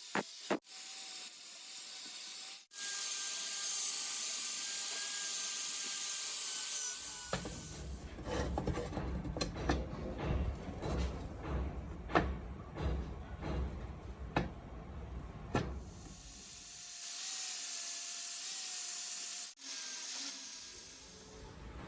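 A steady hiss, then about nine seconds of rough scraping and rubbing with sharp knocks, then the hiss again.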